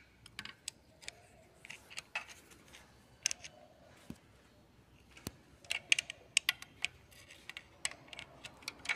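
Irregular light metal clicks and taps from hand tools working at an engine's timing chain and its newly fitted tensioner, as the tensioner is being unlocked. The clicks come thicker about six seconds in.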